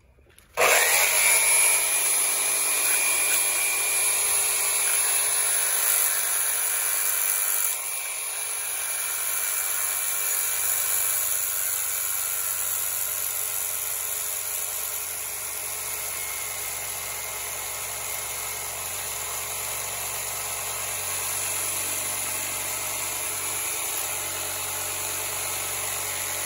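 Erbauer ERS1100 corded reciprocating saw with a metal-cutting blade starting up about half a second in, then running continuously as it cuts through a screw sticking out of a wooden board, with a steady high whine over the motor noise. The sound drops a little in level about eight seconds in and stays steady after that.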